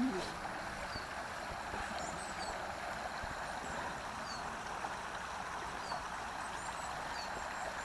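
A river running steadily, a even rushing hiss. Faint short high chirps repeat every second or so.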